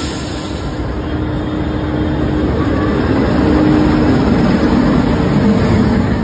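WAP-5 electric locomotive and its passenger coaches passing close by: a steady rumble of wheels on the track with a low hum, growing louder as the coaches go past.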